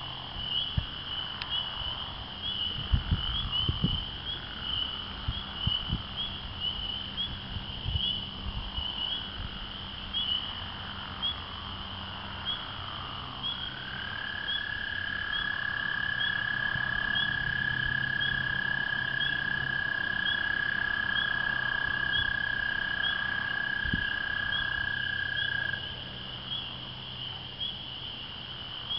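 A spring peeper chorus of dense, high, repeated peeps. About halfway through, an American toad joins with one long steady trill lasting about twelve seconds. A few low thumps come a few seconds in.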